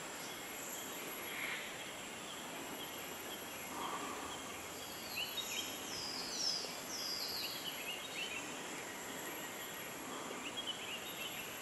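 Tropical rainforest ambience: a steady high insect hiss, with a bird calling a quick run of short falling notes about five to seven seconds in, and a few fainter chirps near the end.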